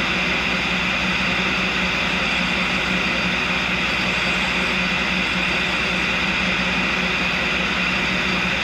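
Tool and cutter grinder running with a carbide lathe tool held by hand against its diamond wheel, a dust vacuum running alongside: a steady machine drone and hiss.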